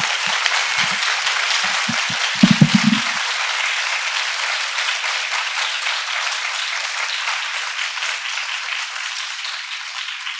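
Audience applauding, a dense, steady clapping that slowly fades toward the end, with a few short muffled low sounds in the first three seconds.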